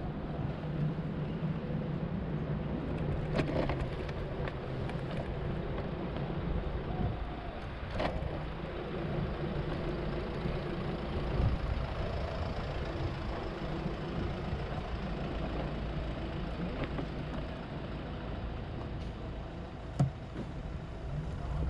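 Steady low vehicle rumble with a faint hum and a few sharp clicks, the loudest one near the end.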